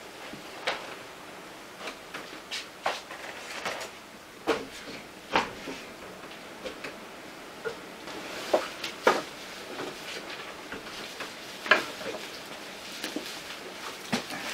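Shoes knocking on the rungs of a wooden ladder as someone steps up and down it: a string of irregular sharp knocks and clicks, the loudest about nine seconds in and near twelve seconds.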